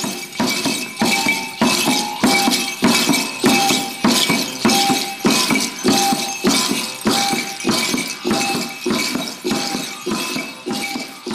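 Mapuche kultrun drum beaten with a stick in a steady beat, a little under two strokes a second, with a bright jingle on each stroke.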